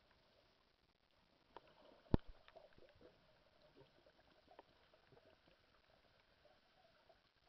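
Quiet underwater sound: one sharp click about two seconds in, followed by a scatter of fainter clicks and crackles over a faint hiss.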